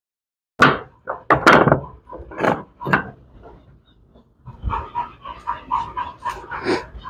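American Pit Bull Terrier barking several times in sharp, loud bursts, then whining on a steady high pitch in short repeated cries from about halfway, excited while held back before a jump at the bite toy.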